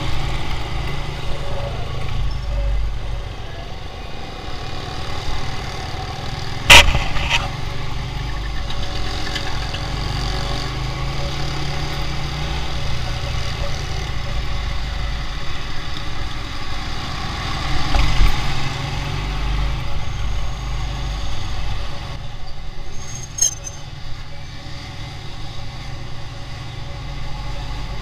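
Motorcycle engine running steadily while riding slowly through traffic, with road noise around it, heard from the bike itself. A sharp knock about seven seconds in, and a smaller one later.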